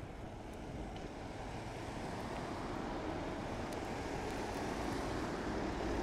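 Road traffic driving through snow on a road: a steady hiss of tyres in snow and slush that swells as the vehicles come closer.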